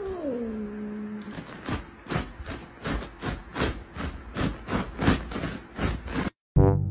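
Cat giving one drawn-out call that glides down in pitch, then a run of short hisses, about three a second, while a hand reaches at its paw.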